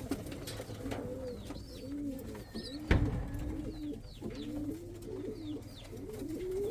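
Several domestic pigeons cooing in a coop, many low overlapping coos throughout, with a single sharp knock about three seconds in and faint higher chirps.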